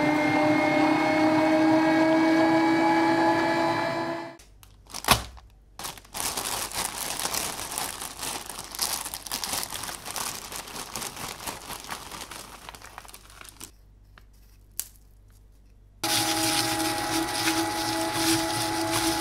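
Electric meat grinder motor running with a steady hum while food goes through it. About four seconds in, the hum stops and gives way to a quieter stretch of crackling and crinkling with one sharp knock. The motor hum starts again suddenly near the end.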